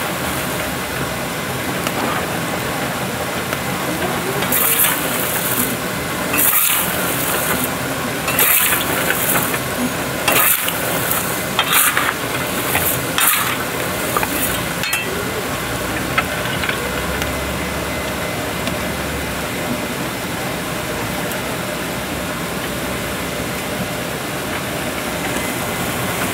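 Chestnuts and hot roasting pebbles being stirred in a large iron pan to make amaguri (stone-roasted sweet chestnuts), giving a steady gritty hiss. A run of louder rattling rushes comes from about 4 to 15 seconds in.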